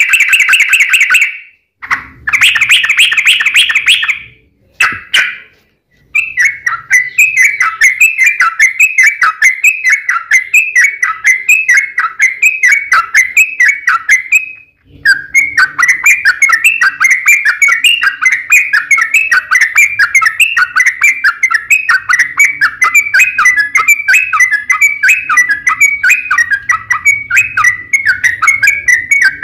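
Yellow-vented bulbul singing: a few short bursts of song, then a long, rapid run of repeated chirping notes with a brief pause about halfway through.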